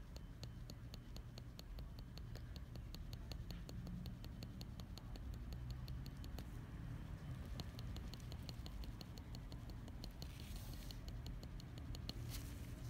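Hand-method shading needle in a manual pen tapping pigment into practice skin: a fast, even run of faint light ticks, several a second.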